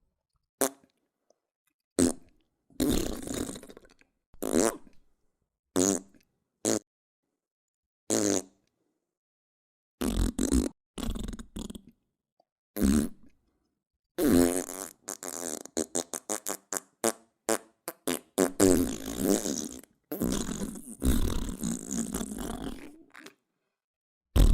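Fart sound effects: a series of separate short farts with dead silence between them, then from about halfway through a long run of quick, rapid-fire farts lasting around nine seconds.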